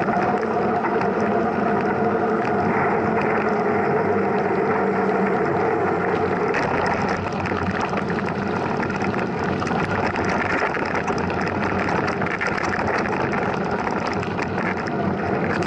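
Mountain bike being ridden, heard from a camera riding along: a steady rush of tyre and wind noise, with rattling clicks from the bike over rough ground after the first several seconds.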